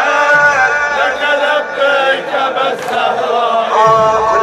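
Men's voices chanting a Shia mourning latmiya, the melody carried in long held notes.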